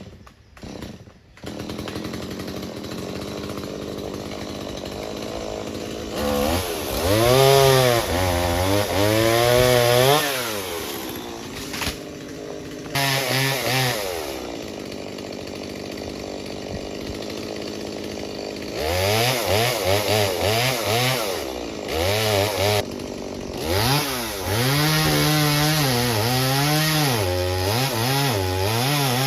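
Two-stroke chainsaw engine idling, then revving hard in two long spells, with a brief rev between them. Its pitch wavers up and down under load as it cuts wood, and it drops back to idle in between.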